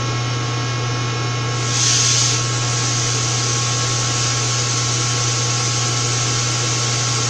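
A powered-up CNC milling machine with a steady electrical hum made of several steady tones. A brief hiss swells and fades about two seconds in.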